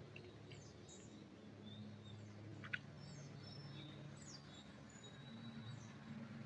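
Small birds chirping faintly in a pine forest, with short high chirps and whistles scattered through, over a steady low hum. One sharp click comes a little before the middle.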